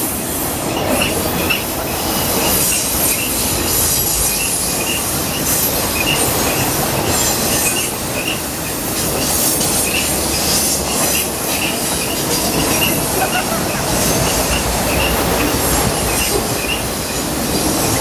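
A freight train of autorack cars rolling past with the steady noise of steel wheels on the rail. Short, high wheel squeals recur every half second to a second throughout.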